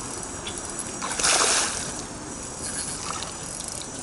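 A hooked peacock bass splashing at the surface once, about a second in: a short burst of spray lasting under a second.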